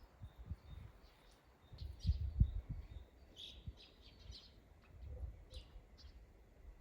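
Small birds chirping in short scattered calls over a low, uneven rumble of breeze buffeting the microphone, which is strongest about two seconds in.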